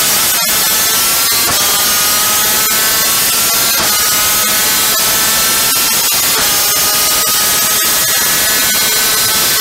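Onboard sound of a superkart's VM 250cc two-stroke engine at full throttle, running at 12,000 to 13,700 rpm and climbing in pitch through several upshifts, dropping back at each gear change. Wind rush on the microphone at over 200 km/h.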